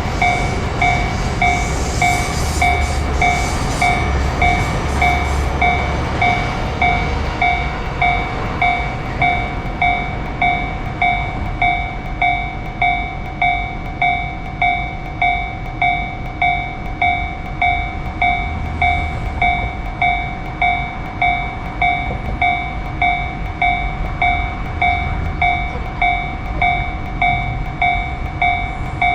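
Japanese railroad crossing warning bell ringing steadily in an even, repeating ding over the rumble of a passing train, with some rail clatter in the first few seconds.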